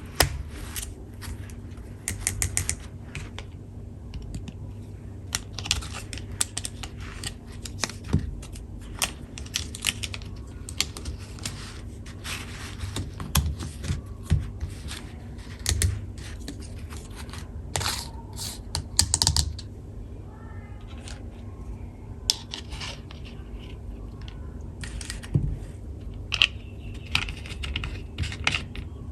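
Small plastic toy tools being handled: irregular clicks and taps, some in quick clusters, with light scrapes between them.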